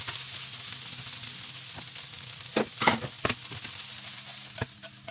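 Stir-fry sizzling steadily in a frying pan, easing a little near the end. From about halfway through come several sharp clacks of metal tongs against the pan as the food is turned.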